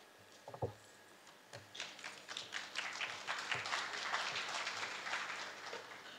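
Audience applauding, swelling from about a second and a half in and tapering off near the end. A single knock about half a second in.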